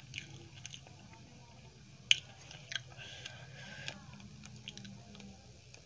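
Close-miked chewing of a mouthful of food: wet mouth clicks and smacks, with one sharp click about two seconds in.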